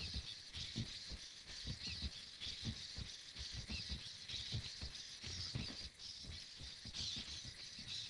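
Hexapod robot walking: a steady high whir from its servos, with irregular low knocks, a few a second, as its legs step and the frame rattles.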